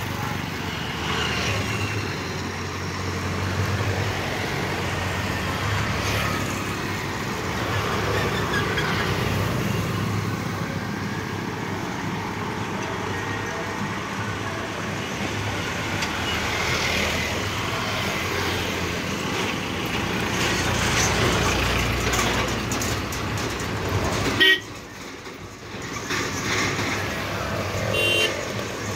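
Long passenger train hauled by an electric locomotive running past on an elevated track, heard as a steady rumble mixed with road traffic noise and vehicle horns. About three-quarters of the way through, the sound drops sharply for a second or two, then returns.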